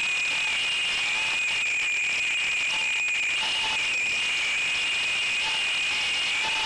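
Motors and propellers of a 3-inch FPV quadcopter in flight, picked up by the onboard camera's microphone: a steady high-pitched whine that wavers slightly in pitch with throttle, over a constant hiss.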